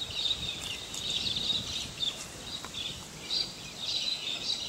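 Outdoor natural ambience: a steady high-pitched animal chorus that swells and fades, over faint background noise.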